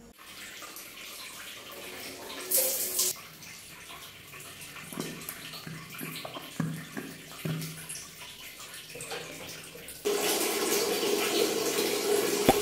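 Bathroom washing sounds: a short spray of water about two and a half seconds in, a few soft pumps of a soap dispenser around the middle, then water running steadily over the last two and a half seconds.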